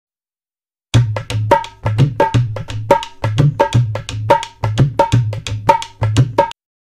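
Tabla playing a fast rhythmic phrase: sharp strokes on the ringing right-hand drum over the deep bass drum. It starts about a second in and stops abruptly.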